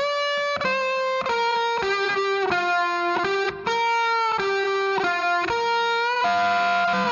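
Background music: a solo melody of held single notes, one after another, with no drums or bass under it.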